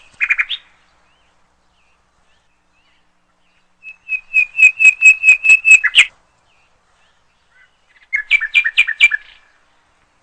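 Bird song in short trilled phrases of rapid, even chirps: a few notes at the start, a trill of about a dozen notes about four seconds in, and another chirping phrase near eight seconds.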